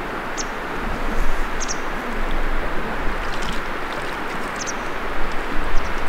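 Steady rush of fast-flowing river water, with a few brief high chirps over it.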